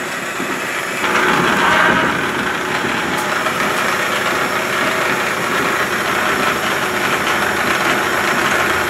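Old metal-working engine lathe running under its old electric motor: a steady, smooth mechanical whir of motor, belt and gearing, getting a little louder about a second in.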